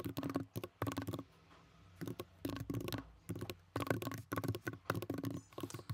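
Typing on a computer keyboard: rapid keystroke clicks in bursts, with brief pauses between words.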